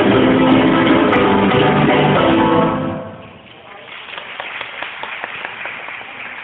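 Live flamenco band playing acoustic guitar over cajon and hand-drum percussion, the music ending about three seconds in. It gives way to a much quieter spatter of irregular, short, sharp sounds.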